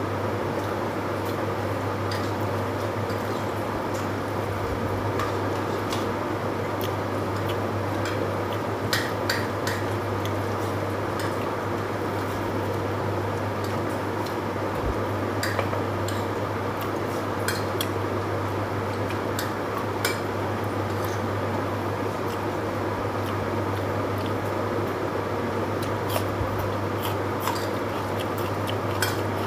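Scattered light clicks and taps of fingers and rice against a plate while eating by hand, over a steady low hum and hiss.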